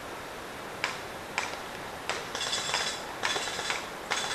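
Airsoft electric guns firing: three single shots about half a second apart, then three short rapid-fire bursts, each a quick mechanical rattle.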